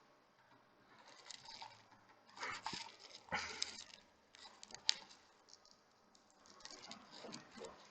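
Irregular scratching and rustling with a few sharp light clicks: small hand tools working on a smartwatch's parts, which are being removed to trace a short.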